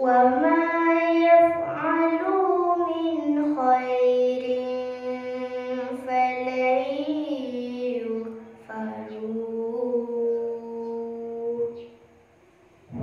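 A girl's voice reciting the Quran in tarannum style into a microphone: long, ornamented held notes that glide up and down. There is a brief pause about eight seconds in, and the voice stops about a second before the end.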